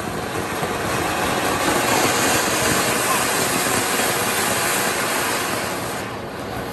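Flower-pot firework (anar, puswanam) fountain hissing loudly as it sprays a column of sparks, building up over the first second and easing off near the end.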